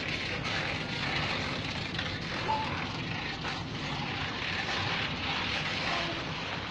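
12-volt DC washing-machine motor running steadily, a continuous whirring hiss with a low hum beneath.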